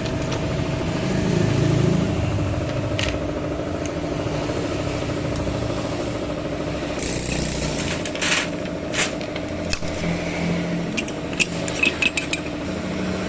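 An engine running steadily in the background, with short metallic clicks and clinks of parts being handled in the second half.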